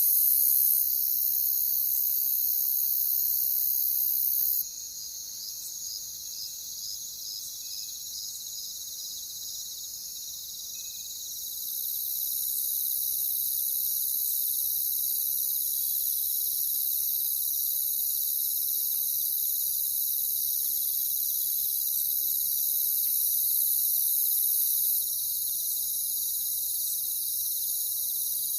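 Chorus of crickets trilling continuously, thick and high-pitched. The overall level drops abruptly about five seconds in and comes back up around twelve seconds. While it is quieter, one cricket's evenly pulsed chirping stands out.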